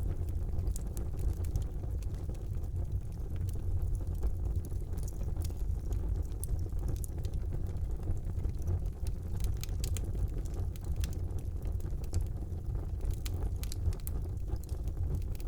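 Wood fire burning in a fireplace: a steady low rumble of flames with many small scattered crackles and pops, in a few denser clusters.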